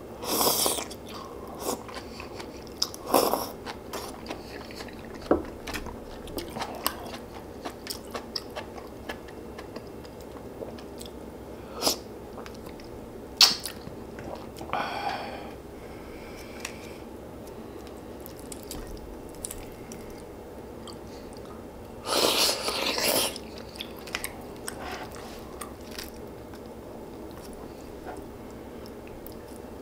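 Close-miked eating sounds of a person chewing and biting through a meal of pork-bone soup and radish kimchi: many small wet clicks, with a few louder, noisier bites about a second long near the start, about halfway and about three-quarters through.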